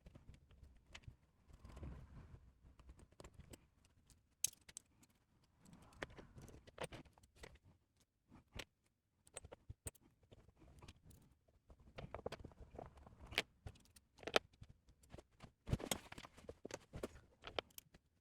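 Hands handling and fitting small 3D-printed plastic parts and screws: scattered irregular clicks, taps and light rattles.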